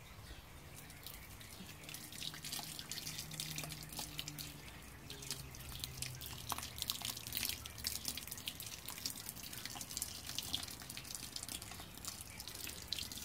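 Hot sparge water splashing and dripping off a spoon onto a wet grain bed in a cooler mash tun, in a quick run of small drips and splashes that gets busier about halfway through. The spoon spreads the water to keep a layer on top of the grain bed during a manual continuous (fly) sparge.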